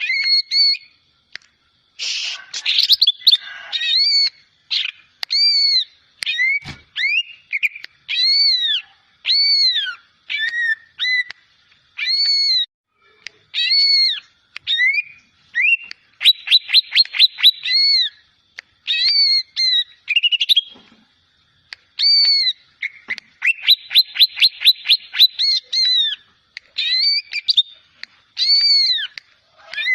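A juvenile cucak ijo (green leafbird) practising its song: a run of clear whistled notes, each rising and falling in an arch, one or two a second. Twice the notes give way to a fast trill of quick repeated notes.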